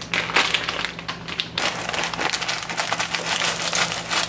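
A plastic bag of frozen corn crinkling as it is opened and handled, then, about a second and a half in, frozen kernels pouring in a rapid, continuous clatter into a metal pot of frozen mixed vegetables.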